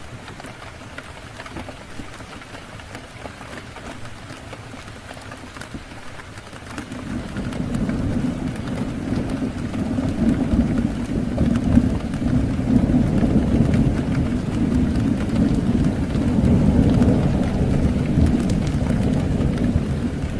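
Steady rain falling, joined about seven seconds in by a long, low rolling rumble of thunder that swells up and keeps going.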